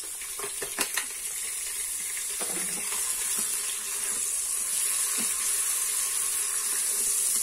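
Ham strips sizzling as they fry in hot garlic oil in a non-stick multicooker pot, stirred with a silicone spatula. A few sharp taps about a second in, then an even sizzle that grows steadily louder.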